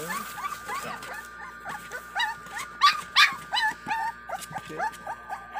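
Five-week-old American Bully puppies whining and yelping: a quick run of short high cries, several a second, each rising and falling in pitch.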